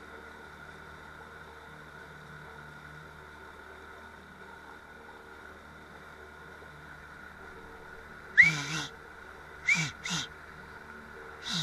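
A boat motor hums steadily. Then, about eight seconds in, a man gives four short, very loud yells in quick succession, each falling in pitch, to hail another boat.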